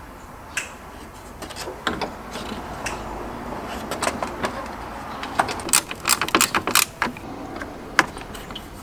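Hand tools and parts clinking and knocking while a replacement electric radiator cooling fan is fitted into a car's engine bay: a run of short sharp clicks, coming thickest a few seconds in.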